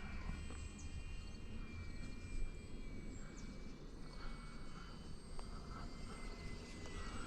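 Electric motor and propeller of the Scrappy RC plane in flight: a faint, thin high whine whose pitch drifts slightly, over a low background rumble.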